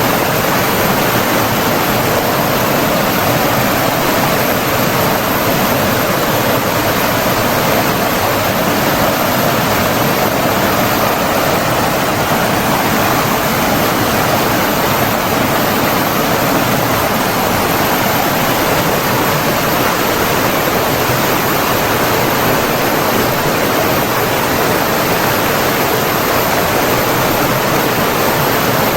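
Flowing water running steadily, as of a stream or waterfall: an even, unbroken rush that does not change.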